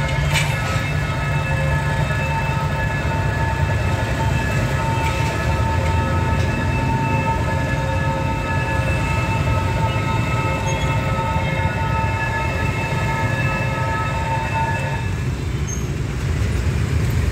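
Passenger train rumbling past a level crossing while the crossing's warning bell rings with a jingling, bell-like tone. The bell stops abruptly about fifteen seconds in, and the train's rumble carries on.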